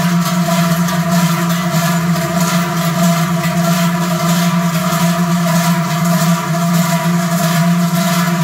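Dozens of large hand-carried cowbells rung together by a marching column, a dense, steady clanging drone with a faint regular pulse from the bells swinging in step.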